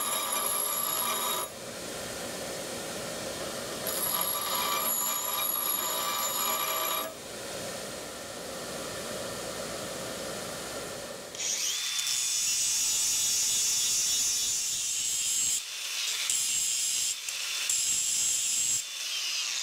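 A power grinder running with its wheel grinding into cast iron, cutting a groove along the crack of a broken post hole digger part to prepare it for welding. Early on it gives a steady ringing whine; from about twelve seconds in the grinding turns to a harsh, loud hiss, broken off briefly a few times near the end as the wheel is lifted and put back.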